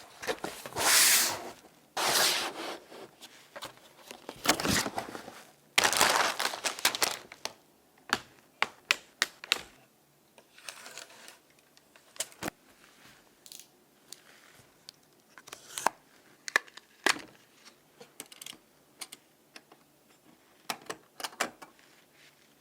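Packaging being torn and crinkled in several long rustling bursts over the first eight seconds or so, followed by a scattered run of short sharp clicks and taps from handling.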